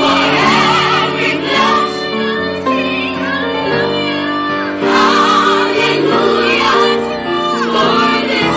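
Gospel music: a woman's voice multi-tracked into a choir of her own layered parts, singing held harmonies over piano.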